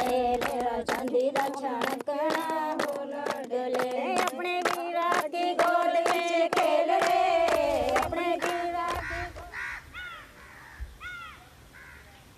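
Women singing a song together to steady rhythmic hand claps, stopping about nine seconds in. Then a bird calls twice in short arched calls.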